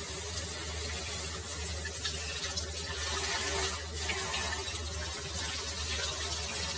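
Handheld shower sprayer running steadily with a hiss of water.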